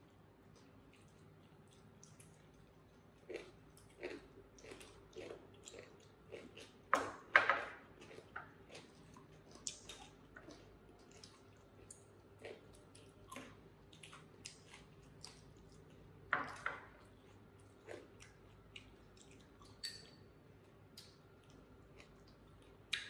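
People chewing food at a meal, with scattered light clicks and taps of chopsticks against ceramic rice bowls and plates. A louder clatter comes about seven seconds in, and another at about sixteen seconds.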